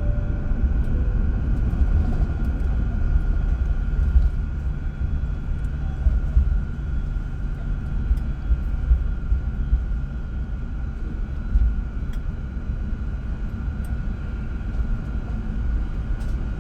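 Airliner cabin noise after landing: a steady low rumble of engines and airframe heard from inside the cabin, with a thin steady whine above it.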